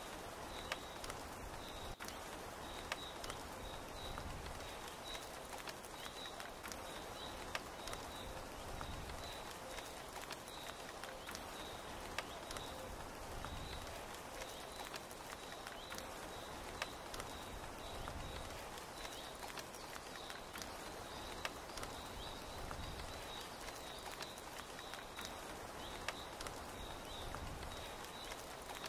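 Steady rainfall pattering on tent canvas, with scattered louder drops ticking close by. A faint high chirp repeats evenly, about twice a second, throughout.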